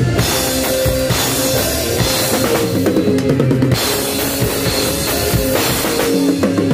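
Instrumental music played loud through a sound system under test, with a busy drum kit, bass drum and cymbals over sustained melody notes.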